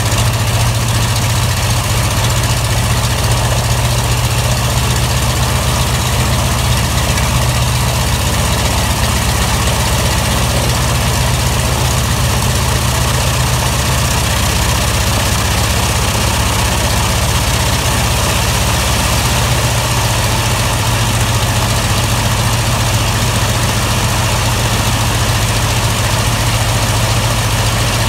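Cessna 195's radial engine, cowling off, idling steadily with the propeller turning on its first run. The low, even engine hum holds without change.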